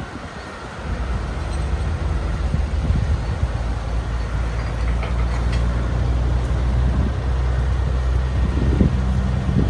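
Heavy machine's engine running steadily at a low, even pitch, growing louder about a second in, with a few faint clinks.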